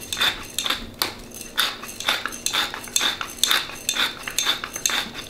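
Hand pepper mill grinding black pepper, twisted back and forth in a steady rhythm of crunching, scraping strokes, about three a second.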